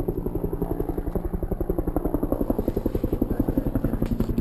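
An engine running steadily with a rapid, even throb.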